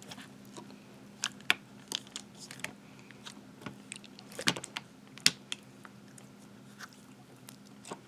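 Wet jiggly slime being squeezed and handled by hand, giving irregular sticky clicks and small pops.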